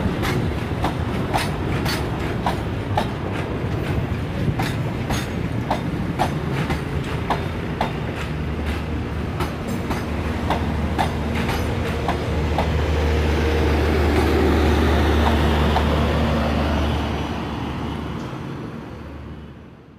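Passenger coaches of a local train rolling slowly past, wheels clicking over the rail joints at an uneven pace over a steady rumble. A steady low drone swells as the rear of the train goes by, then the sound fades away.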